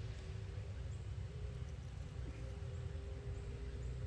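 Honeybees humming around an open hive, a steady drone with a low rumble underneath.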